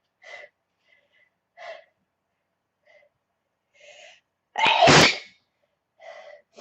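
A young woman's allergy sneeze: a few short breathy catches of breath build up, then one loud sneeze about five seconds in, followed by a short breath.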